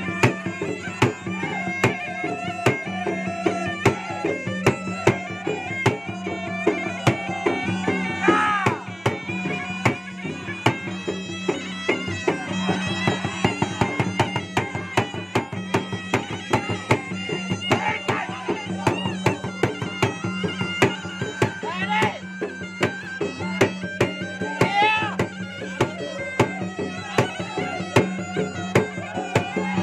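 Two Makassarese gendang barrel drums beaten in a rapid, steady rhythm with a stick and bare hand, under a continuous nasal reed melody from a puik-puik shawm that bends and wavers in pitch.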